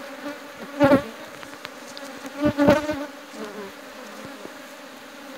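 Honeybees buzzing in a steady hum around hive boxes broken open and frames cut out by honey thieves. Two brief louder bursts come about one second and two and a half seconds in.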